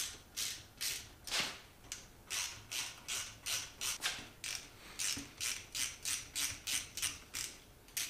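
Ratchet wrench worked back and forth in short strokes, its pawl clicking about twice a second, turning a fitting in a hydraulic port on a grapple cylinder.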